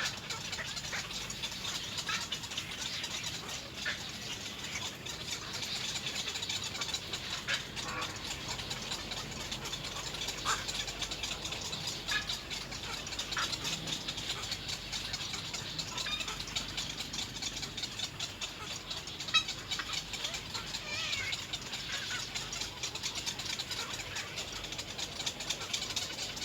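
Many short, irregular chirps and clicks from little egret nestlings over a steady high hiss.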